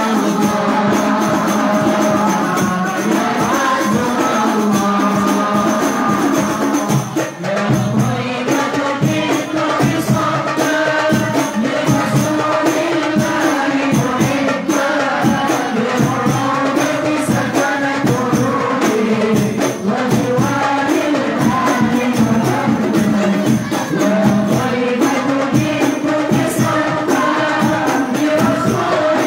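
Hadroh ensemble performing: a singer on a microphone chants a devotional song over the steady beat of rebana frame drums.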